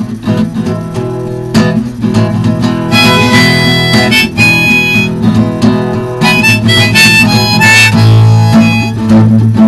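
Harmonica on a neck rack playing a melody over strummed acoustic guitar, an instrumental break between sung verses; the harmonica turns higher and louder from about three seconds in.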